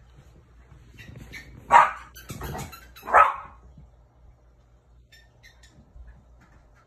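Jack Russell terrier barking: two loud, short barks about a second and a half apart.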